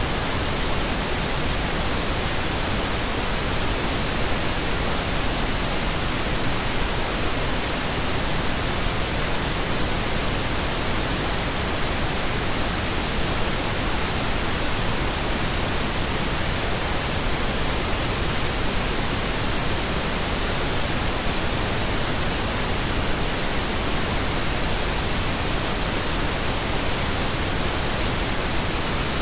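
Steady pink noise: an even, unchanging hiss spread across all pitches, with more weight in the lows than white noise.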